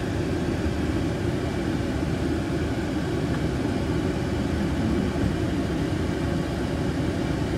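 Steady low rumble of a running car, heard from inside its cabin.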